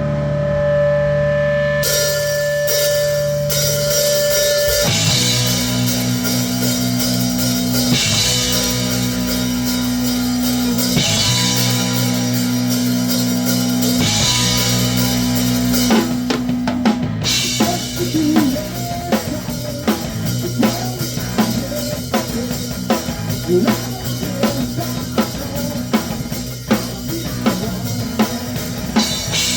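Grunge rock band playing: sustained distorted guitar and bass chords with cymbal wash, then about halfway through the drums come forward with sharp snare and kick hits on a steady beat.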